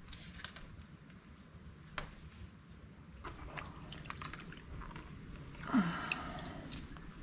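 Wet squelching, scraping and dripping as mud and sludge are scooped by a rubber-gloved hand out of a clogged yard drain, with scattered small clicks. A louder squelch about six seconds in as a clump of mud is pulled free.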